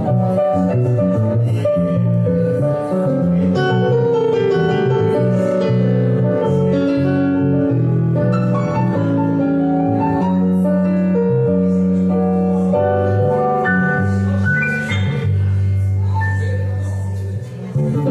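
A digital piano and an electric bass guitar playing together. The bass holds long low notes under the piano's chords and melody.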